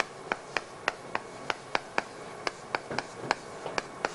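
Chalk on a chalkboard while writing by hand: a dozen or so sharp taps and short scratches, about three a second.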